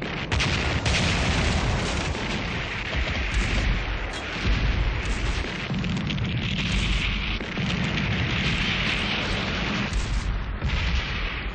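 Film battle sound effects: a dense barrage of explosions and gunfire with a heavy, continuous low rumble and many sharp cracks, without a pause.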